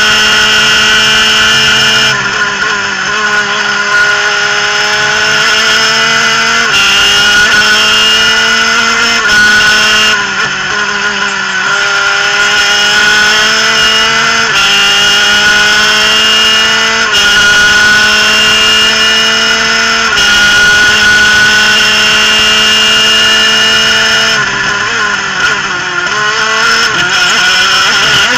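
Superkart's twin-cylinder two-stroke racing engine at full throttle, screaming at around 12,000–13,000 rpm. Its pitch climbs and then drops back sharply at each gear change, repeated through the lap, with a falling stretch of braking and downshifts about three-quarters of the way through.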